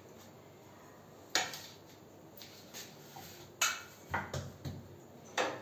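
Metal kitchen utensils and dishes knocking and clattering on a counter: a handful of sharp knocks, the loudest about three and a half seconds in, followed by a quick run of smaller ones.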